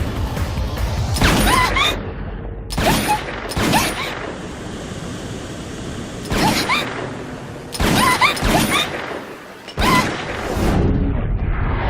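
Sniper rifle shots as a sound effect: several loud single shots at uneven intervals, each with a trailing boom, and mechanical clatter between them.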